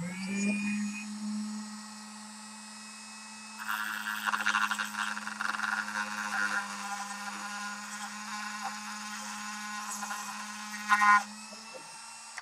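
Dremel rotary tool with a cutoff wheel spinning up to a steady high-speed whine. From about four seconds in to about eleven seconds it grinds into the edge of a thin, cheap aluminum card bracket, making a gritty rasping over the motor tone. Everything stops near the end.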